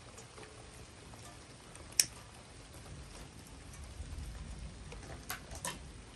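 Rain dripping and pattering, with a single sharp tap about two seconds in, the loudest sound, and two more taps close together near the end, over a faint low rumble.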